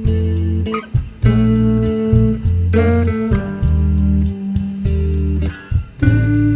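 Background music led by guitar over a bass line.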